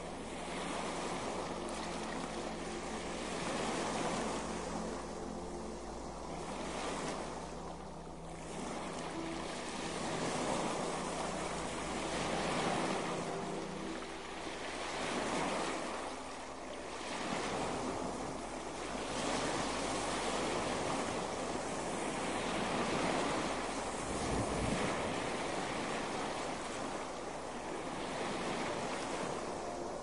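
Ocean surf: waves breaking and washing continuously, the rush swelling and easing every few seconds.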